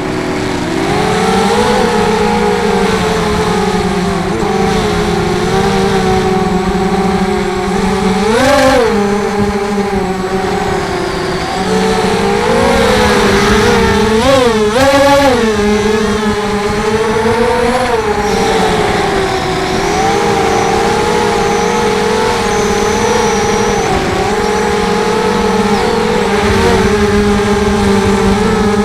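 ZMR250 quadcopter's brushless motors spinning Gemfan 5045 fiberglass props, a steady whine that rises and falls in pitch with the throttle. There are sharp throttle punches about eight seconds in and again around thirteen to fifteen seconds in.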